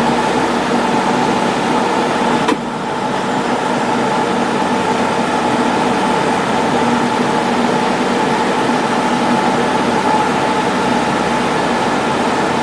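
Steady cabin noise inside a jet airliner in flight: an even rush of engine and air noise with a low hum, dipping slightly in level about two and a half seconds in.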